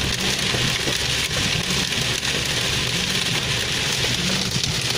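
Heavy rain pelting the roof and windscreen of a moving car, heard from inside the cabin: a dense, steady hiss over the low rumble of the car on the wet road.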